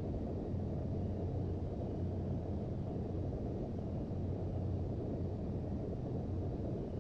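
Steady low rumble of Boeing 737-800 cabin noise in flight on approach, the engines and airflow heard from inside the passenger cabin.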